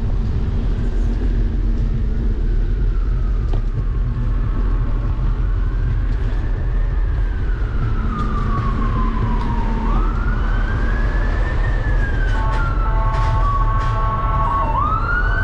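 Emergency vehicle siren wailing, its pitch rising and falling slowly, then in quicker sweeps, with a brief steady blare in the second half before the wail starts up again near the end. Under it a deep steady rumble of wind and road noise from the moving scooter.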